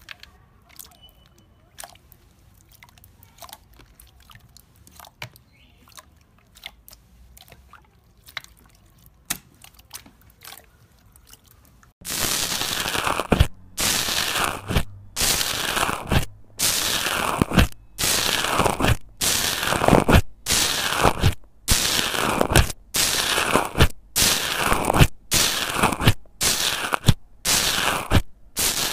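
Faint sticky clicks and pops as hands press and squish metallic silver slime, then, about twelve seconds in, loud crackling crunches about once a second as a metal tube is pushed again and again into bubbly blue slime.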